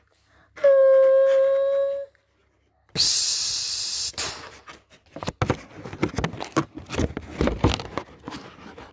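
A person's voice holding a steady hummed tone for about a second and a half, mouth-made sound for a model trolleybus, then a loud hiss about three seconds in, followed by irregular rustling and handling knocks of the paper model and phone.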